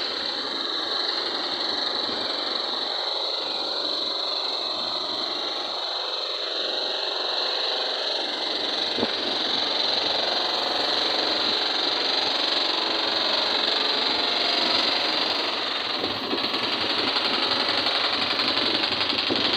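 Steady city street noise with a continuous high-pitched whirr and no clear single event.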